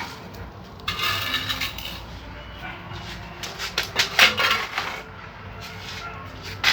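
Hard toys clattering and knocking together, with a quick run of sharp knocks about four seconds in.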